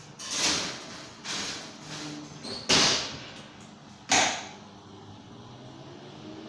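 A kitchen oven being loaded with a tray of cashew nuts: the oven door and tray make several scraping, rushing noises, with two sharp knocks, the loudest, about two and three quarters and four seconds in.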